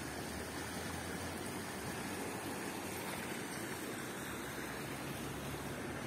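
Steady rushing of water splashing in a stone courtyard fountain, with a low rumble under it.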